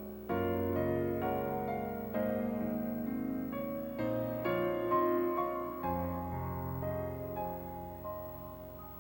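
Background piano music: slow, soft chords and notes, each struck and left to fade.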